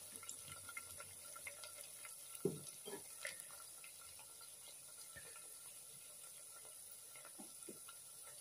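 Faint, steady sizzling of green pigeon peas, chopped onion and coriander frying in oil in a clay handi, with a few light spoon knocks against the pot about two to three seconds in.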